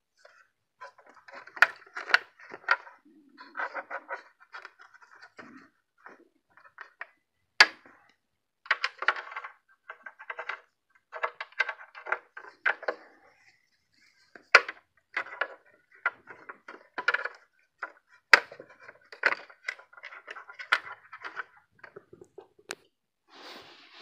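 Hands handling an RC vehicle's hard plastic body and a foam-sleeved LiPo battery: scattered sharp plastic clicks and taps with short bouts of rustling and scraping, the loudest clicks about a third, two thirds and three quarters of the way through.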